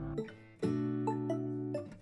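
Light instrumental background music: held chords with a gentle, bell-like melody picked out over them, moving to a new chord about half a second in.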